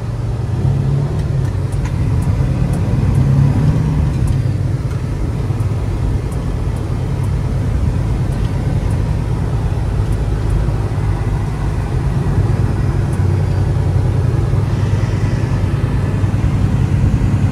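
A semi-truck's diesel engine running steadily and loud, its sound mostly low-pitched, with faint light ticks above it.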